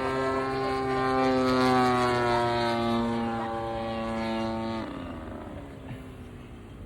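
60cc engine of a large RC P-47 model airplane running steadily with its propeller, loudest a couple of seconds in. About five seconds in, its pitch drops and the sound fades away.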